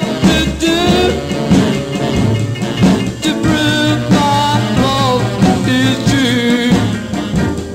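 Music: a 1950s rock-and-roll 45 record playing, a band with drums and a lead melody line that bends in pitch.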